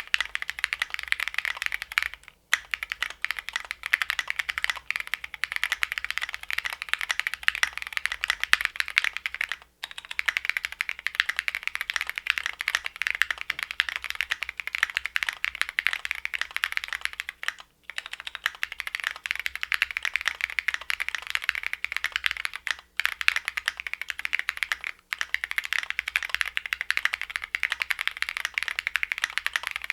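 Fast continuous typing on a gasket-mounted custom mechanical keyboard with lubed Cherry MX Hyperglide Black linear switches, a polycarbonate plate and tall SA keycaps: a steady stream of clacky keystrokes, broken by a few brief pauses.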